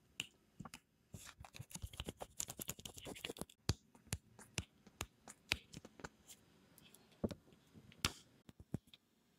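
A clear plastic sheet of UV gel nail wraps crinkling and crackling as fingers handle it and peel wraps off the backing, with sharp clicks and taps of fingernails on the plastic. The crackling is dense for the first few seconds, then comes as scattered clicks.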